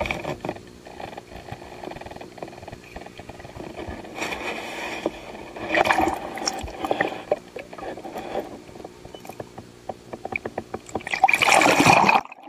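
Water splashing and sloshing around a camera held at the surface on a pole, in irregular surges, with a louder rush of splashing near the end as the camera plunges underwater.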